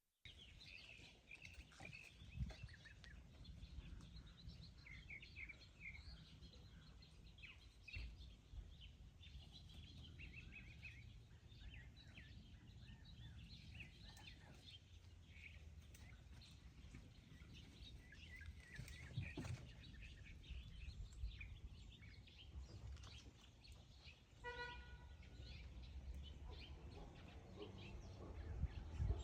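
Many birds chirping and singing faintly, over a low steady rumble. About three-quarters of the way through, a short steady tone sounds once.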